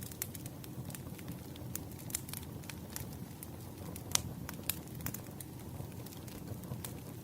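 Firewood burning in a fire, crackling with irregular sharp pops; the loudest pop comes about four seconds in. A low steady rumble runs underneath.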